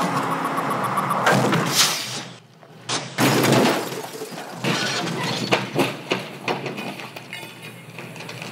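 Car crash with glass shattering, in two loud bursts about a second in and a little after three seconds, followed by scattered clinks and clatter of debris.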